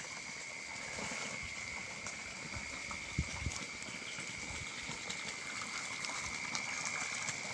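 Water running and gushing from a mountain spring, with a steady high-pitched whine over it. A couple of low thuds come about three seconds in.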